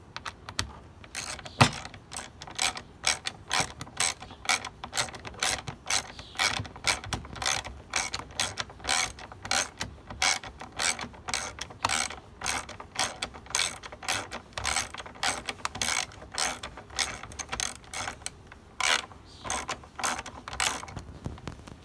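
Socket ratchet wrench clicking in a steady run of back-strokes, about two to three clicks a second, as a bolt is tightened through the plastic fan shroud. A short pause near the end, then a few more strokes.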